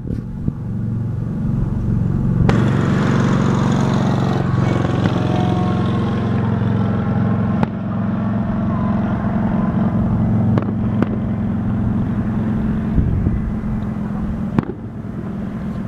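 Several sharp firework bangs a few seconds apart, over a steady low drone.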